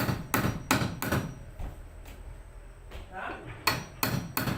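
Hammer blows on wood, in two quick runs of about four strikes each, near the start and again in the last second, during the hanging of a wooden door.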